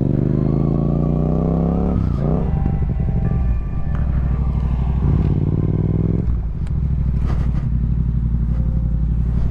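Motorcycle engine heard from the rider's seat. It accelerates with a rising pitch for about two seconds, drops back, runs lower as the bike slows, then idles steadily and cuts off right at the end.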